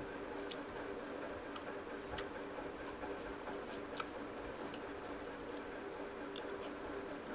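A person eating rice and omelette curry by hand: soft wet chewing and the squish of fingers mixing rice with curry, with a handful of small sharp ticks spread through, over a steady background hum.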